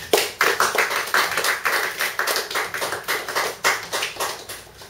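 Small audience applauding: many quick, overlapping claps that die away near the end.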